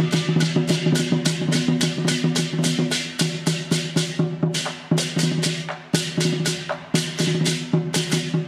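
Taiwanese temple-procession percussion: fast, steady drum and cymbal strikes, about four or five a second, over a sustained ringing tone, with heavier crashes every second or so in the second half.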